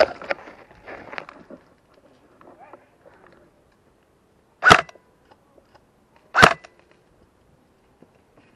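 Brief rustling and clicking, then two sharp single shots from an airsoft rifle, about a second and a half apart, starting about halfway through.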